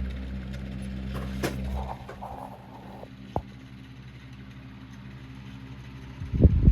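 Antique Diehl oscillating table fan's electric motor humming steadily, the low hum dropping sharply about two seconds in, with a couple of sharp clicks. Near the end, loud irregular knocking and rubbing close to the microphone.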